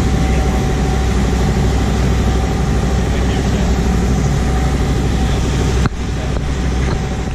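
Fishing boat's engine running steadily underway, a deep, even drone with a steady hum. A single sharp click about six seconds in.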